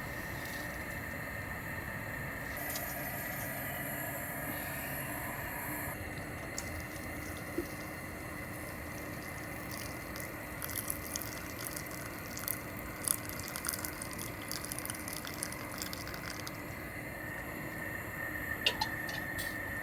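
Wood fire burning: a steady hiss with scattered sharp crackles, which grow more frequent in the second half.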